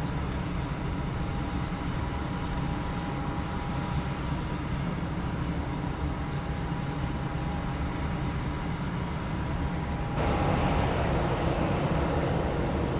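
Twin GE90 jet engines of a Boeing 777-200ER airliner running as it lines up on the runway: a steady low rumble with a faint high whine. About ten seconds in, the sound suddenly gets louder and fuller as power comes up for the takeoff roll.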